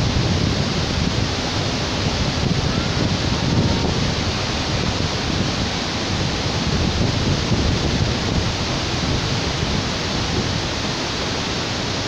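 Steady rush of the Iguazú Falls, many cascades of swollen, muddy river water pouring over rock ledges into the gorge below. It is a dense, unbroken noise, heaviest in the low end.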